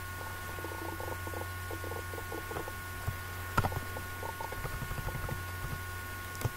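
Faint, scattered taps of computer keyboard keys being typed, with one sharper click about three and a half seconds in, over a steady electrical hum.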